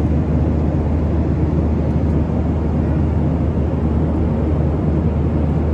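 Steady low engine rumble heard inside a moving vehicle, with an even drone and no change in pitch.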